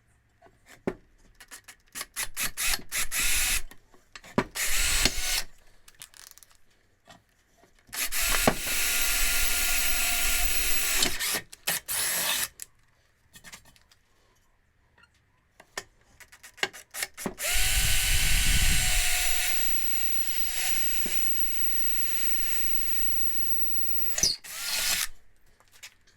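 Electric drill boring two holes into a cracked aluminium alloy wheel at the ends of the cracks. The drill runs in a few short starts and two long runs with a steady whine, with clicks and knocks of handling in between.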